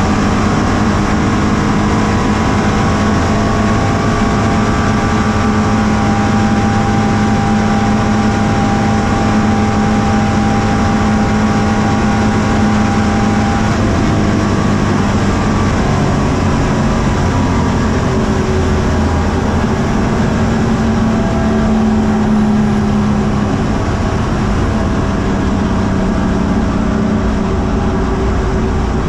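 Engine of a stripped, roll-caged race pickup heard from inside the cab during a high-speed run, with wind and tyre noise. It holds a steady note for most of the run, changes pitch slightly about halfway through, and dips a little in level near the end.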